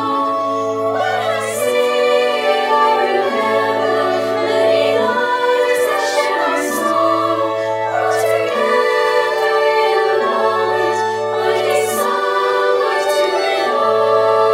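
Slow choral music: voices singing sustained chords, the bass note shifting every second or two.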